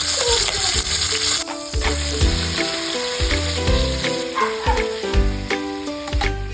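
Food sizzling hard in hot oil in a pan, a loud frying hiss that cuts off about a second and a half in. Then background music with a bass line and a steady beat.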